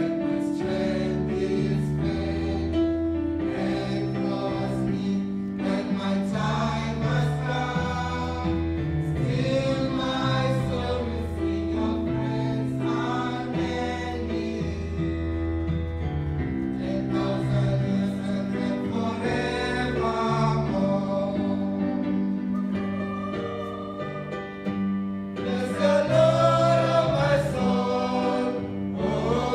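Choir singing a gospel song over keyboard accompaniment, the voices swelling louder about 26 seconds in.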